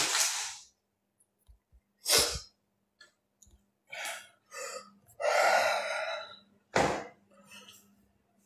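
A man breathing out hard in about six short, hissing bursts, with a longer voiced sigh about five seconds in.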